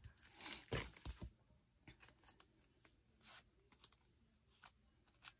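Faint paper rustling and a few light taps as the paper is handled and glued by hand, with a cluster of rustles in the first second and scattered ticks after.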